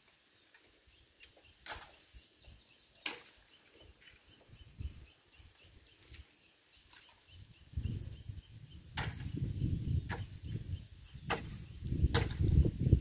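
Sharp cracks of dry, cut bamboo being struck or snapped: six at irregular spacing, two near the start and four close together in the second half, the loudest near the end. A low rumble sets in about eight seconds in.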